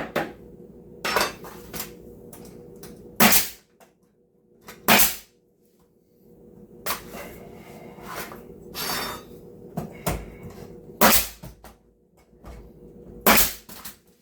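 Scattered sharp wooden knocks and clatter, about six separate hits spread irregularly, as wood pieces and tools are handled and set down during cabinet face-frame work.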